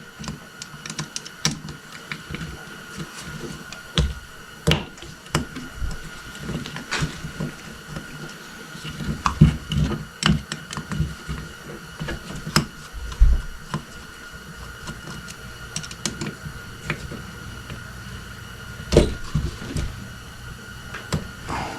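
Hand tools and small metal parts clicking, tapping and clattering at irregular intervals, with a few heavier knocks, while the float bowl is unscrewed and taken off an ATV carburetor. A faint steady high tone runs underneath.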